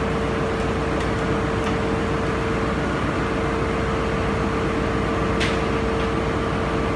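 Steady drone of ship's engine-room machinery with a constant mid-pitched hum, and a couple of short clicks, one about a second and a half in and another about five seconds in.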